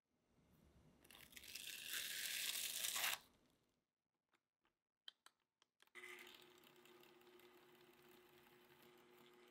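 A rustling noise swells for about three seconds and stops sharply. A few light clicks follow. About six seconds in, an electric hand mixer with wire beaters starts and runs steadily at low speed in a glass bowl of egg-yolk mixture.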